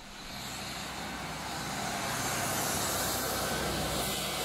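Street traffic noise: a motor vehicle's engine and tyre noise swelling over the first second or so, then holding steady.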